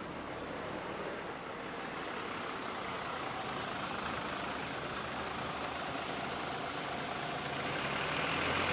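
Bus engine running with road and traffic noise, slowly growing louder towards the end; no horn is sounding.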